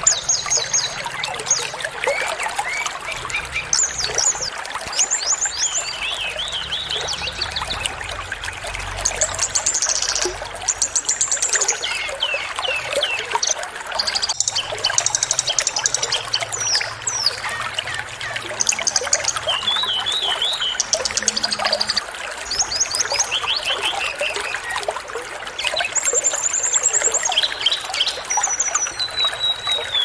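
Many short, high chirps and rapid trills from several small songbirds, one after another, over a steady trickle of running water. It is a small-bird tutor recording (masteran) used to get caged white-rumped shamas singing.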